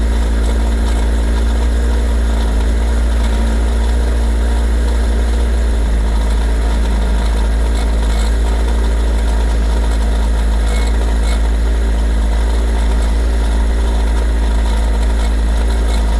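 Kawasaki ZR7S four-cylinder engine idling steadily, carrying an abnormal mechanical noise that the owner suspects comes from the cam chain; he says it fades when the revs rise and grows as they drop.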